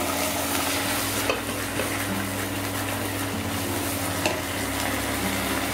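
Chopped onion, spring onion and capsicum sizzling in hot oil in a non-stick wok, just after soy sauce has been poured in, while a silicone spatula stirs them. Two light knocks of the spatula against the pan come about a second in and again near four seconds in.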